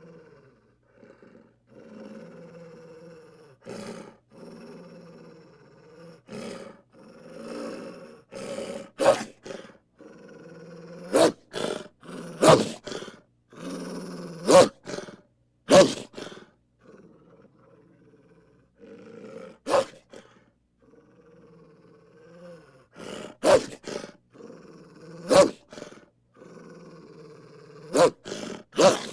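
Arctic wolves growling low in stretches of a second or two, broken by short, sharp, loud barks that come in clusters from about nine seconds in.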